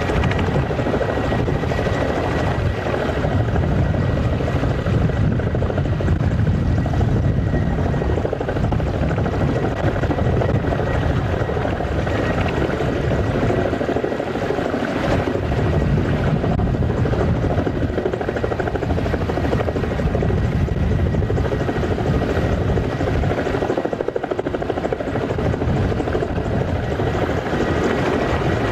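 Kamov Ka-32 coaxial-rotor helicopter landing on the ice and running on the ground, its rotors and turbine engines at a steady loud pitch with a thin high whine over the low rotor rumble.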